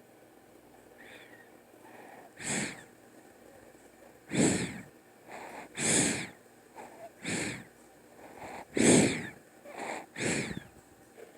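Snoring: a regular run of rough, wheezy snores about every second and a half, starting a couple of seconds in.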